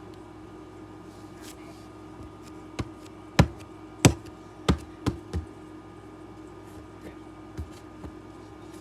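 The back end of a pencil poking and tapping a crust of dried-out slime: sharp taps, about six in the middle of the stretch, two of them loudest, then one more near the end.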